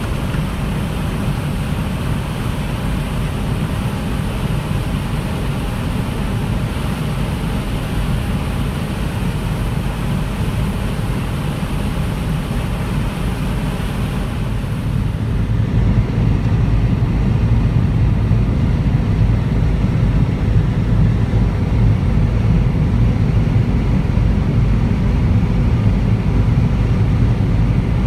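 Heavy harvest machinery running steadily with a low engine hum. About halfway through, the high hiss drops away and the low hum grows louder.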